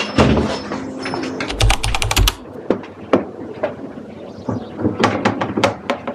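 A run of clicks and light knocks from things being handled, with a quick burst of rapid clicking over low thumps about a second and a half in.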